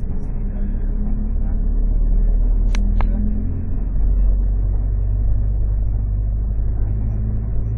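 Steady low rumble of engine and road noise heard from inside a moving vehicle, with two short clicks about three seconds in.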